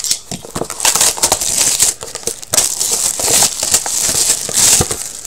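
Clear plastic wrapping crinkling and tearing as it is pulled off a box of trading cards: a dense, continuous rustle with many small crackles, stopping near the end.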